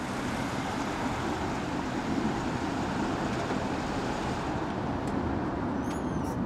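Steady outdoor traffic noise with wind, at an even level, with a few faint high rising chirps near the end.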